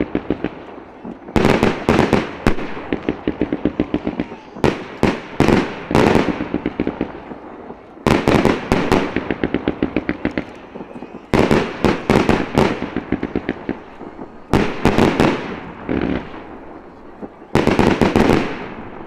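Aerial firework shells bursting at close range: six volleys about every three seconds, each opening with sharp loud reports followed by a rapid run of crackling pops that fades out.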